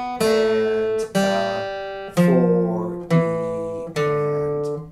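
Steel-string acoustic guitar playing a slow descending single-note lick down the C major scale, about one note a second, each note ringing into the next.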